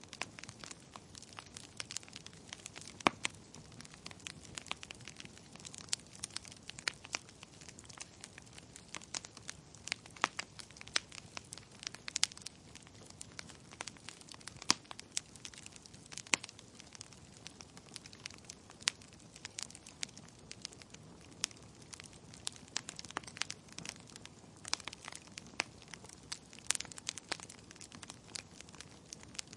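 Wood fire burning in a fireplace: logs crackling and popping in sharp, irregular snaps over a soft steady hiss, with a few louder pops.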